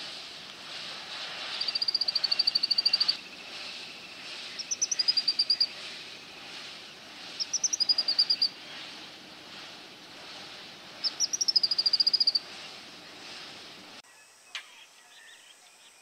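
Indian bushlark (red-winged bushlark) singing: four short phrases, each a few rising high notes running into a rapid, even trill, over a steady background hiss. About two seconds before the end the background drops and a single sharp click sounds.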